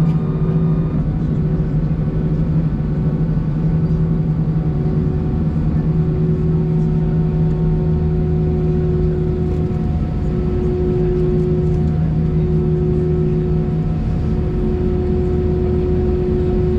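Airbus A319 cabin noise on the ground: a steady low drone of the idling engines and air-conditioning, heard from inside the cabin, with several steady hums, one of which breaks off and comes back every second or two.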